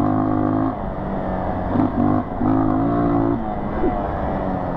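Dirt bike engine running under throttle while riding a sandy trail. It swells louder twice as the throttle is opened, easing back in between.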